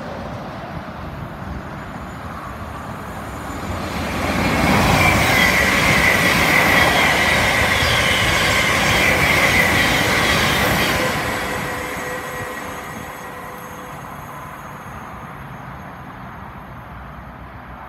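Thameslink Class 700 electric multiple unit running through the station at speed without stopping. Its running noise builds from about four seconds in and is loudest for about six seconds as the carriages go by, with a high steady ringing whine over the rumble. It then fades to a lower rumble as the train draws away.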